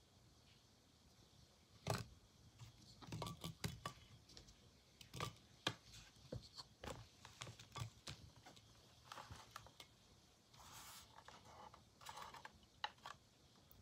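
Faint, scattered clicks and light knocks as apple slices are set into a ceramic dish on a digital kitchen scale and the dish is handled, with a couple of brief rubbing scrapes near the end.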